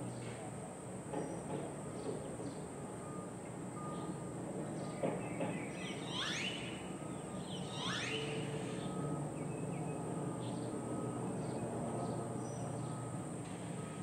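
Backyard ambience: a steady high-pitched insect drone over a low hum of distant traffic, with short repeated chirps and two quick falling bird calls about halfway through.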